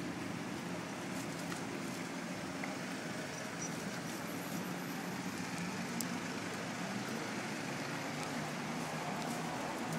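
Steady street ambience: a continuous wash of road traffic noise with no distinct events.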